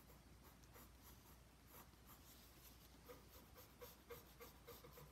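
Faint scratching of a pencil drawing sketch lines on sketchbook paper, in short irregular strokes.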